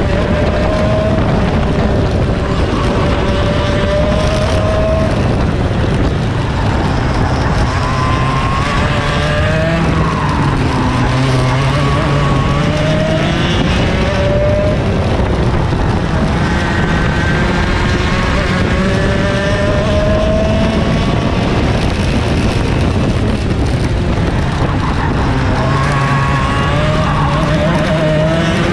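Racing kart's two-stroke engine heard onboard, its pitch climbing for several seconds at a time and then dropping, over and over as it accelerates and backs off.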